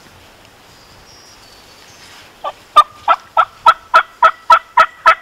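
A hand-held turkey call sounding a run of about ten loud yelps, a little over three a second, starting about two and a half seconds in: calling to make a gobbler across the hollow gobble so its position can be located.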